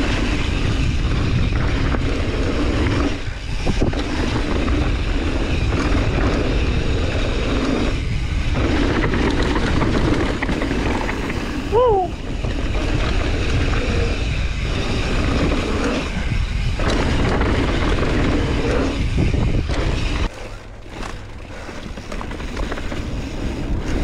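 Wind buffeting the action camera's microphone while a mountain bike rolls fast down a dirt bike-park trail, with tyres and the bike rattling over the ground. A brief wavering tone sounds near the middle, and the low rumble drops off about twenty seconds in as the bike slows.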